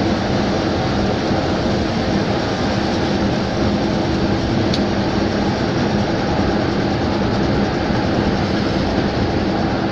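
Steady driving noise heard inside a vehicle cruising on a highway: a constant engine hum with tyre and wind roar, with no change through the stretch.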